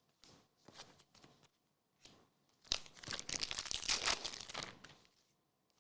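A trading card pack's wrapper being torn open, a loud crackling tear of about two seconds that begins nearly three seconds in. Before it there are faint rustles of cards being handled.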